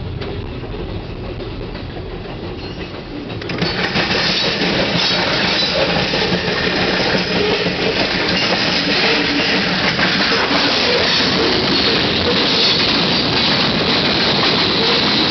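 Freight cars of a long CN freight train rolling past, steel wheels clattering over the rails in a continuous rumble. It is duller at first, heard from inside a car, then jumps much louder and brighter about three and a half seconds in.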